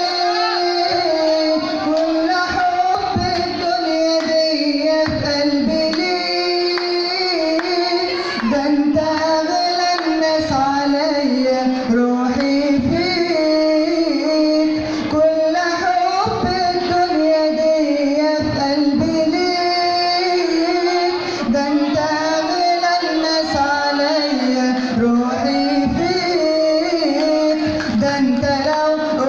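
A man singing a verse of an Arabic pop song solo in a high voice, in long held, ornamented melodic lines.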